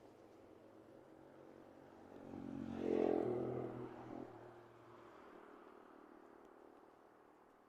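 A motor vehicle passing by: its engine swells to a peak about three seconds in, then fades over the next second and a half.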